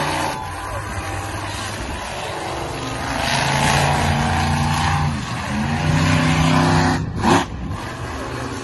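Monster truck engine revving up and dropping back twice as the truck drives. A brief loud burst comes near the end.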